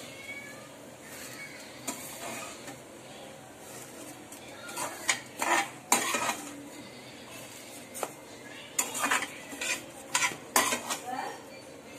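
Metal spoon scraping and clinking against a steel kadhai and a steel plate as roasted broken wheat (dalia) is scooped out and tipped onto the plate. The scrapes and clinks come irregularly and are busiest from about five seconds in and again near the end.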